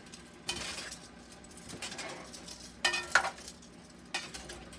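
Metal tongs turning oxtails browning in a large metal pot: scraping and sizzling, with a few sharp metal clinks against the pot about three seconds in and again near the end.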